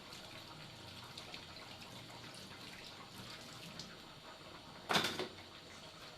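Quiet kitchen handling with small scattered clicks, then a brief splash of water from a tap, lasting about half a second, near the end.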